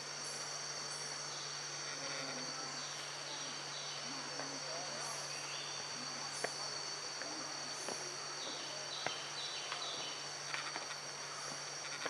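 Insects droning steadily in tropical forest, an even high-pitched whine, over a low steady hum. A few sharp clicks past the middle and some short chirps near the end.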